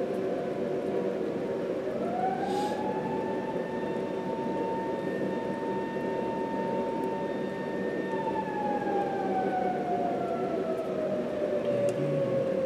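Fire siren sounding one slow cycle: its pitch winds up about two seconds in, holds steady for several seconds, then slowly winds down.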